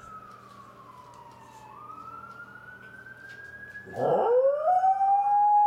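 A distant fire truck siren wails, its pitch falling and then rising again. About four seconds in, a corgi starts howling loudly in imitation of it: the howl sweeps sharply up and then holds on one steady note.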